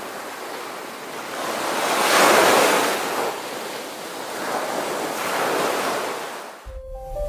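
Sea waves breaking and washing up a sandy beach, swelling twice as surf rolls in. Music comes back in just before the end.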